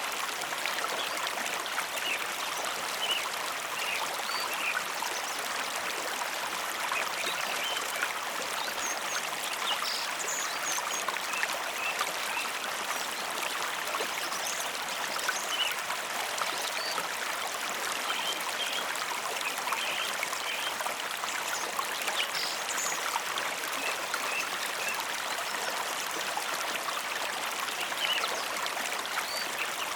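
Mountain river flowing: a steady, even rush of running water with many small splashes and trickles on top.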